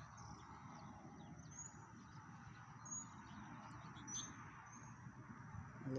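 Faint birdsong: short, high chirps repeating about every second, over a low, even rumble.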